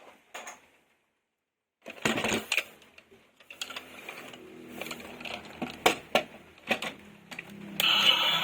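Plastic toy vehicles being handled and unboxed: sharp clicks, knocks and rattles with rustling in between, starting about two seconds in. A faint steady hum runs underneath from about halfway, and a louder, denser sound comes in near the end.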